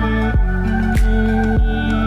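Background music: held synth chords over a steady electronic beat, about one beat every 0.6 seconds.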